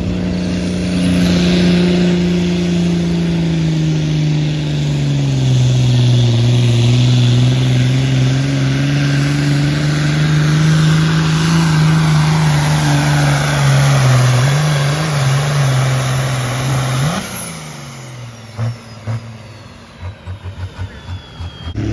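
Ford TW-10 pulling tractor's diesel engine running flat out under load as it drags the weight sled, with a high whine over it. The engine note drops about five seconds in as the sled bogs it down and stays low. About 17 seconds in the throttle is cut and the engine falls away to a much quieter, uneven running.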